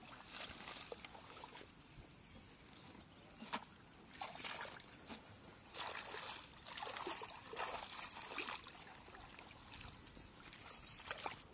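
Hands splashing and sloshing in shallow muddy water, groping in the mud for catfish, in irregular short bursts.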